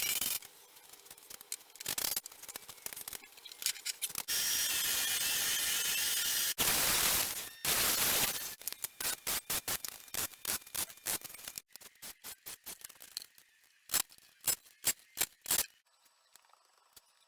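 Workshop noises: a few seconds of steady machine-like noise, then a run of sharp knocks or taps, about two a second near the end.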